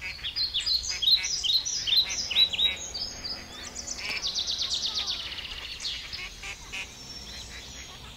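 Small songbirds singing: a dense run of quick, high chirps, then a fast trill about four seconds in, the calls growing fainter toward the end.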